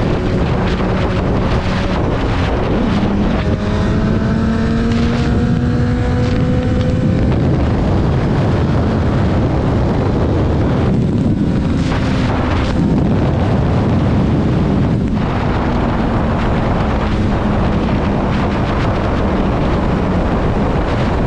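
Honda CBR1000RR's inline-four engine running at speed under heavy wind noise on the microphone. Its note rises as the bike accelerates a few seconds in, then holds steadier.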